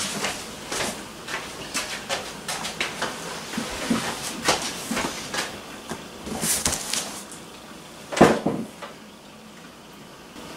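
Irregular knocks, scuffs and rustles of a large cardboard box being carried over and set down on a table, with a louder single thump about eight seconds in.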